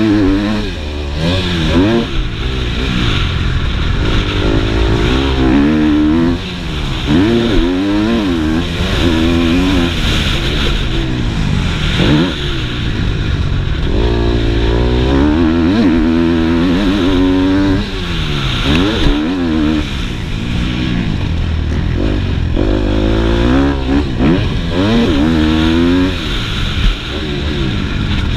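Motocross dirt bike engine, heard from the rider's helmet, revving hard as it accelerates, its pitch climbing and dropping back again and again through the lap.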